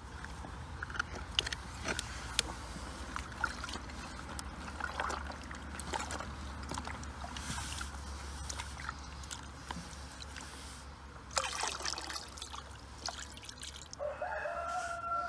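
Stream water running over rocks, with raw chicken pieces being washed by hand in a plastic bowl: sloshing, splashing and light knocks of the pieces in the water. Near the end the bowl's water is poured out, and a wavering tone comes in.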